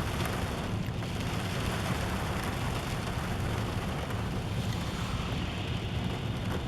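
Steady rain falling, with wind noise on the microphone.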